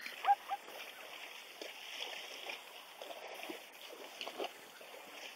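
Water splashing and sloshing as plains zebras wade through a shallow river. A couple of short, sharp calls come just after the start and are the loudest sounds.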